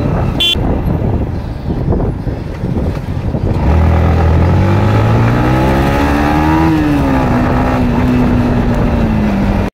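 Yamaha MT-15's single-cylinder engine heard from the rider's seat: it climbs steadily in pitch as the bike accelerates from about four seconds in, eases off shortly before seven seconds and then holds a steady note. Before that, road and wind noise with a short horn toot about half a second in.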